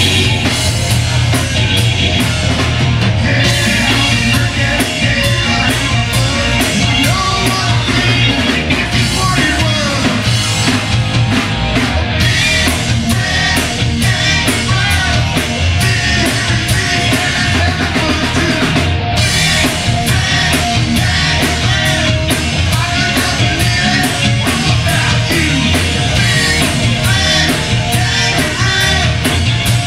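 Live rock band playing loud: a male singer on a microphone over a steady drum beat, electric guitar and bass.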